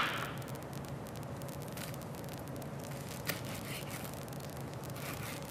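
A few faint taps of a chef's knife on a wooden cutting board as a red hot pepper is sliced, over a steady low hum.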